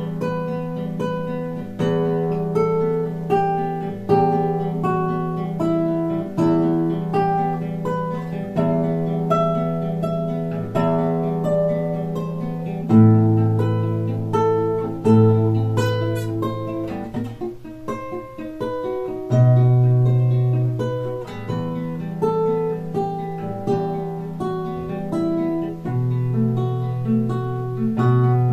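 Nylon-string classical guitar played solo fingerstyle: a steady run of plucked melody notes over sustained bass notes, with heavier bass notes struck about halfway through.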